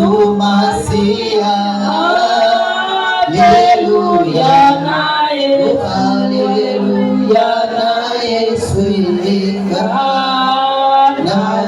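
A worship song sung by men's and women's voices together over music, with long held notes.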